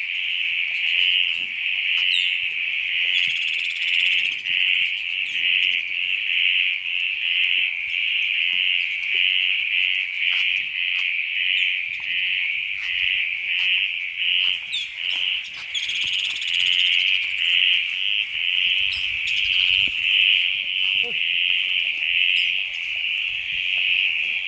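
Insects shrilling in a loud, even chorus that pulses about twice a second, with a few short bird chirps over it.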